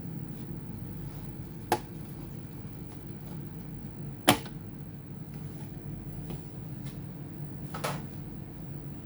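Three sharp clicks of hard parts or tools being handled, a few seconds apart, the middle one the loudest, over a low steady hum.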